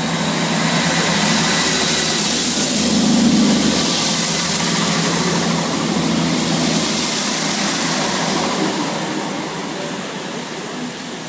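Class 159 diesel multiple unit pulling out of the station, its underfloor Cummins diesel engines working under power as it accelerates past. The sound fades away over the last few seconds as the train draws off.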